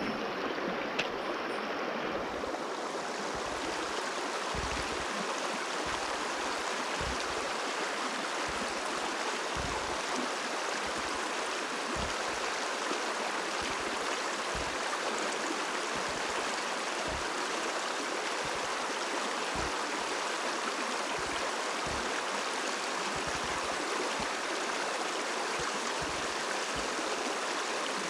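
Mountain stream water rushing steadily over rocks, with occasional short low thumps underneath.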